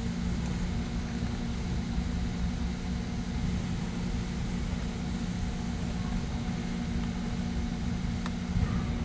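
A vehicle engine running steadily with a constant low hum, and a single sharp click about eight seconds in.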